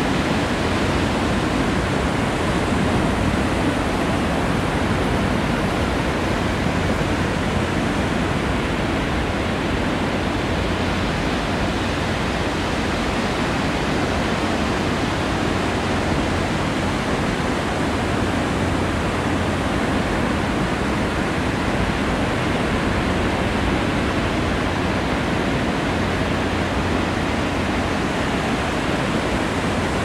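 Steady rushing noise of ocean surf breaking along a beach, an even wash with no separate wave crashes standing out.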